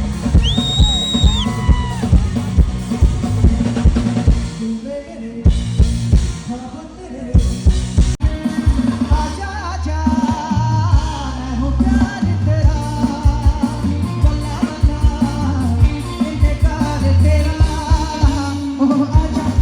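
Song with a heavy bass-drum beat and a singing voice, played loud over a DJ loudspeaker system. The beat drops out for a few seconds about a quarter of the way in, then comes back with the singing.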